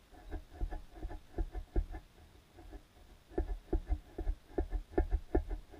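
An irregular run of dull knocks heard underwater, a few a second and bunched in clusters, louder in the second half.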